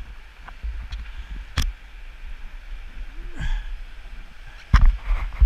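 River water splashing and sloshing against a Bellyak's plastic hull, over a steady low rumble. There are two sharp splashes or knocks, about a second and a half in and again near the end.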